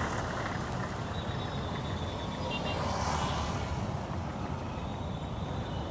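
Road traffic running steadily: engines of minibus taxis and motorcycles with their tyres on a dirt road. The hiss swells briefly about three seconds in as a vehicle passes.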